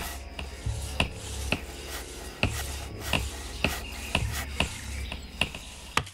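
Saw rasping back and forth through a red sanders trunk in repeated strokes, with sharp knocks of chopping on wood at irregular intervals. The sound drops away abruptly near the end.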